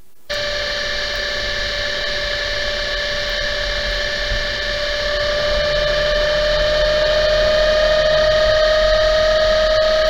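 Rear differential gear whine picked up by an accelerometer on the differential housing at about 64 mph. A strong steady tone near 610 Hz stands over a noisy, many-toned drivetrain sound and rises slightly in pitch and grows louder. The technician believes this tone is the ring gear's tooth-contact frequency, the whine heard in the cabin. It starts suddenly and cuts off suddenly.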